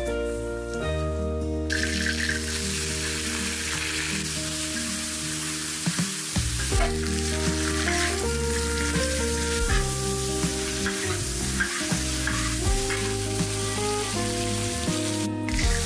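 Sliced cured pork sizzling as it is stir-fried in a large iron wok, with a metal spatula scraping and clicking against the pan. The sizzle starts about two seconds in and drops out briefly near the end.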